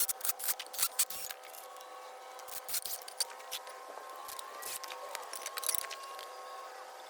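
Irregular light clicks and knocks of 2x2 wooden boards and hand tools being handled during frame assembly, over a faint steady hum of a few held tones.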